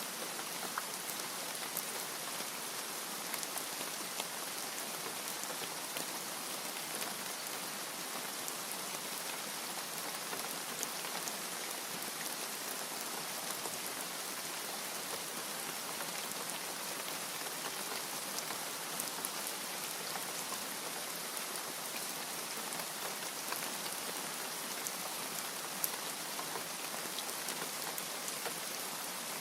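Steady rain falling on a surface, an even hiss with many small ticks of individual drops landing throughout.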